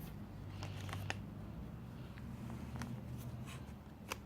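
Faint paper rustles and a few light taps as a picture book's page is turned by hand, over a low steady hum.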